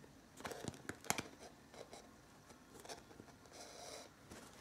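Faint handling sounds of hand-sewing a crochet purse onto its metal clasp frame. A few sharp clicks come about half a second to a second in, and a soft rustle of fabric and thread comes a little before the end.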